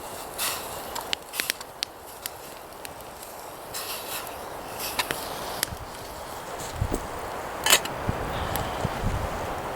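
Wood campfire crackling, sharp pops scattered over a steady hiss, the loudest pop about three quarters of the way through. Some low thuds near the end.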